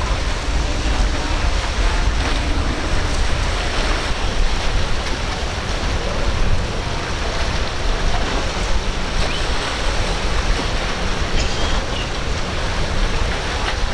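Wind rumbling on the microphone over a steady wash of surf and breaking waves, with no distinct engine note standing out.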